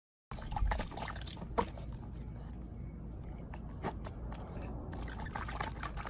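Corgi puppy pawing and splashing in a small plastic tub of water: irregular splashes and drips over a steady low background rumble.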